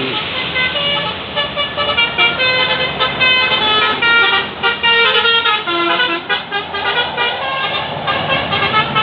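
Tour bus's multi-tone telolet horn playing a tune of short notes in quick succession, over the noise of the passing bus and traffic.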